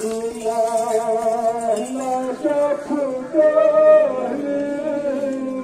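A person singing long, held notes with a slight waver, moving from note to note every second or so.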